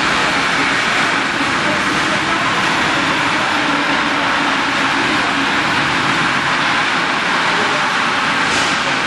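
CNC plasma cutting torch cutting through a steel beam, a steady loud hiss with no breaks.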